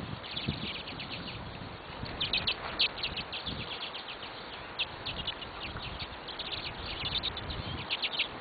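Small birds chirping: many short, rapid chirps, busiest about two seconds in and again near the end, over a steady outdoor background hiss.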